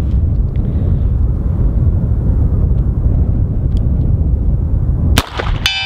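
Wind buffeting the microphone, then near the end a single shot from a Smith & Wesson Model 14 .38 Special revolver fired double action. Right after it comes a metallic ringing of several steady tones: a steel target struck at about 100 yards.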